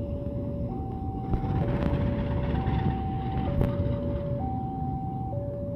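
Railway level-crossing warning alarm sounding: an electronic two-tone signal alternating steadily between a lower and a higher note, each held just under a second. Under it runs the low rumble of a diesel locomotive passing over the crossing.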